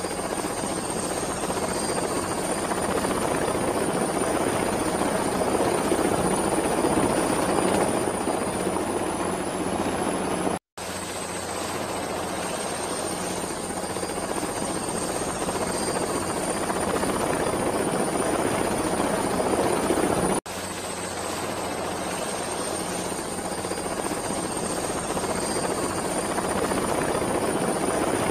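Looped aircraft engine sound effect: a steady rush with a thin, slowly rising high whine. It cuts out for a split second about 11 seconds in and again about 20 seconds in, where the loop restarts.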